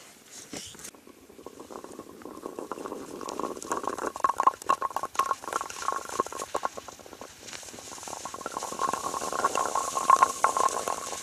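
Rough scraping and crackling of a child sliding down a hard, icy snow slope on the seat of his clothes, a fast run of small irregular scrapes and crunches.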